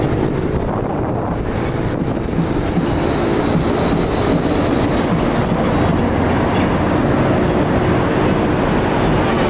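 Steady engine and road noise of a moving vehicle, with wind rushing over the microphone.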